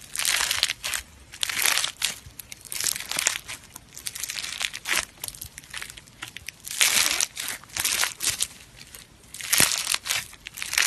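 Crunchy slime squeezed by hand, crackling and crunching in a run of separate squeezes about half a second long each.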